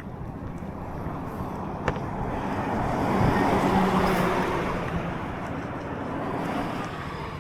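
A road vehicle passing by: its tyre and engine noise swells to a peak in the middle and fades away.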